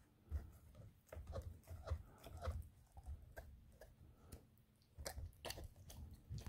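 A dog gnawing on a rawhide bone: faint, irregular crunches and clicks of teeth on the chew, coming in short spurts with pauses between.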